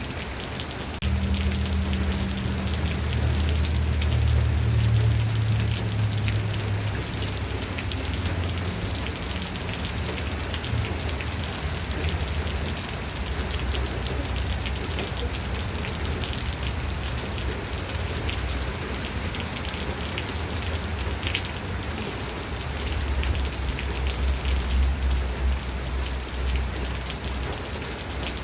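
Steady rain falling on a surface: a dense, even hiss with the patter of many drops. A low rumble comes in about a second in and swells again near the end.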